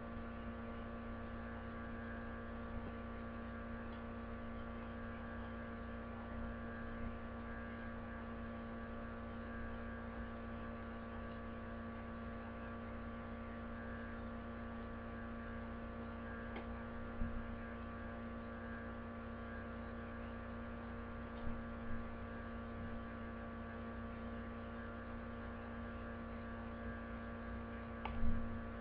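Steady electrical hum made of several unchanging tones over a low rumble. A few brief soft knocks come through around the middle and once near the end.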